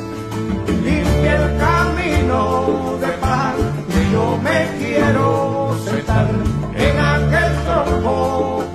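Cuban son music playing: acoustic guitar and bass keep the repeating chord pattern while a sliding lead melody plays above them.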